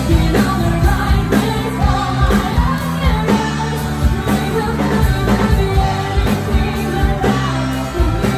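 Live pop cover band playing, loud: singing over bass and drums with a steady beat of about two a second.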